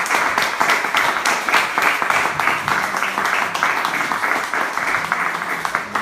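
Audience applauding, with a dense, steady patter of handclaps.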